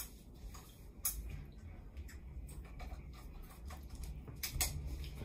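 Quiet rustling and handling noises with a few sharp clicks, one about a second in and two close together near the end.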